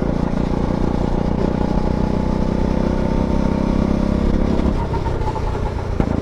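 Go-kart engine running steadily at speed, dropping off about four and a half seconds in, with a sharp click near the end.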